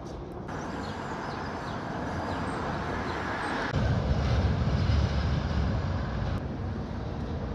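Outdoor street ambience of road traffic: a steady rush that grows louder, then, after a cut about four seconds in, a heavier low rumble.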